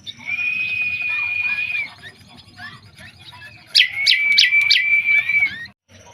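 Bird giving two long, steady whistled notes, the second about four seconds in with four sharp clicks over it, among many short chirps.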